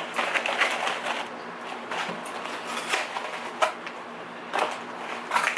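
Items being handled and packaging rustling: irregular crinkling with scattered sharp clicks and light knocks, a few louder ones near the end.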